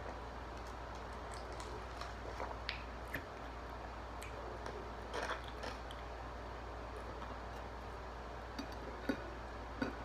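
Close-up eating sounds: scattered soft clicks and wet mouth noises of chewing, with fingers handling fried chicken strips and fries, over a steady low hum.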